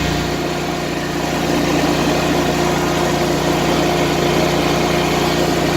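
Riding lawn mower engine running steadily as the mower drives along, a little louder from about a second and a half in.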